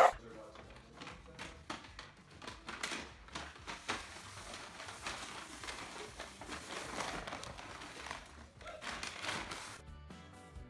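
Rustling, crinkling noise with many scattered clicks, after a sharp click at the very start.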